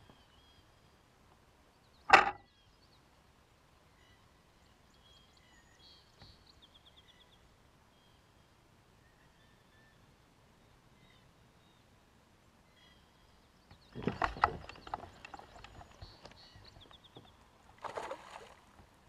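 Knocks and handling noise from an angler moving about in a kayak: one sharp loud knock about two seconds in, then a run of knocks, rustles and light water noise in the last third and a shorter burst near the end, over faint bird chirps.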